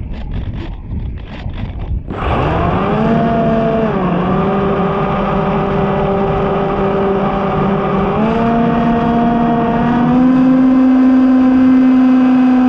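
Electric motor and propeller of a foam flying-wing RC plane spinning up about two seconds in, then running with a steady whine whose pitch steps down and back up a few times as the throttle changes. Before it, wind blowing on the microphone.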